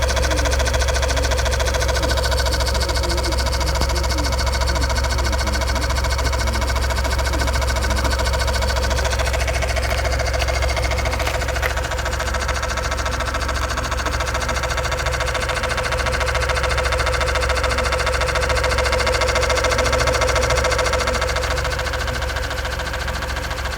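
Honda Odyssey RB1's faulty power side-mirror motor whirring nonstop with a steady whine, over the low hum of the idling engine. The broken mirror motor keeps running the whole time the engine is on.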